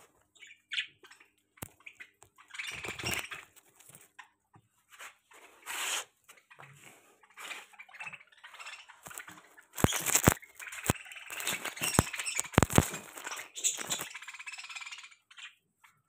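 Flock of budgerigars chirping and flapping their wings in irregular bursts, with several sharp knocks clustered from about ten seconds in, the loudest part.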